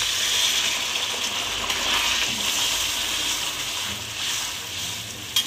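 Hot water poured from a steel mug into a kadai of fried, spiced potatoes, gushing and splashing steadily and tapering off after about three and a half seconds. A sharp tap comes near the end.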